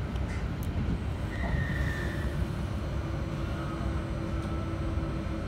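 Interior running noise of a Z 20500 double-deck electric commuter train in motion: a steady low rumble of wheels on rail. A thin high tone sounds briefly about a second and a half in, and a lower steady tone runs through the second half.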